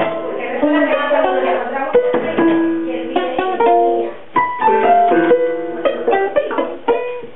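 A ukulele being strummed, with a child playing notes on a keyboard alongside it: short plucked strums mixed with held keyboard notes.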